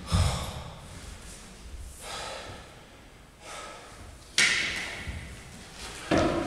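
A man's loud, noisy breaths and a deep thud as he shifts on a concrete floor with a metal-framed chair. The loudest breath comes about four and a half seconds in, another just before the end.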